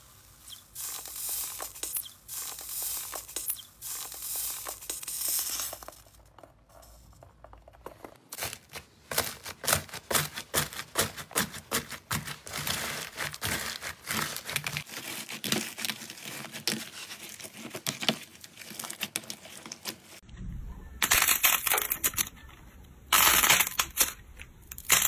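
Hand-played slime: first a potato masher pressing down into a tub of wet slime. Then, from about eight seconds in, fingers squeezing slime packed with foam beads, making a dense run of fast crackles and crunches. Near the end come louder separate squishes and tearing sounds as thick, fluffy slime is pulled apart.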